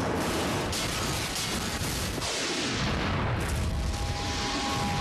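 Cartoon explosion sound effects: a continuous run of booms and rumbling as a spaceship blows up. A steady high tone comes in near the end.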